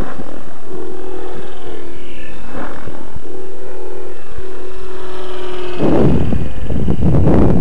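700-size electric RC helicopter flying at low headspeed: a steady rotor hum with a higher motor whine that bends up and down in pitch as it manoeuvres. About six seconds in, a loud rushing noise takes over as it comes close.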